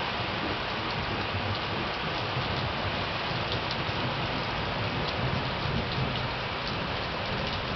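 Heavy rain falling steadily in a thunderstorm, an even hiss with scattered ticks of drops striking hard surfaces.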